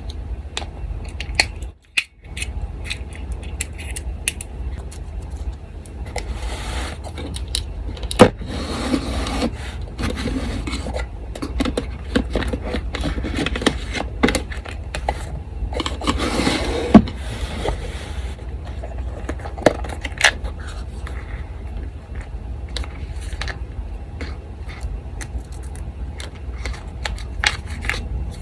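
Paper being handled and rustled on a desk, with small clicks and scrapes of craft tools and a couple of sharper knocks, over the steady low hum of an electric fan.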